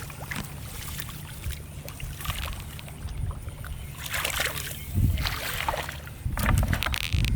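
Water splashing and sloshing in irregular bursts over a steady low rumble, growing louder about five seconds in and again near the end.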